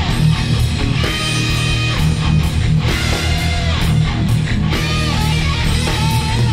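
Heavy metal band recording: distorted electric guitars over bass and drums, with a lead guitar line of held and bent notes above, no vocals.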